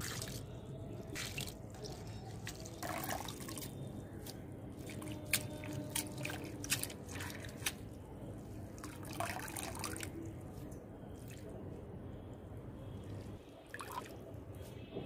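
Hands washing leafy greens in a pan of water: the water swishes, and drips and small splashes come at scattered moments as handfuls of wet leaves are lifted out.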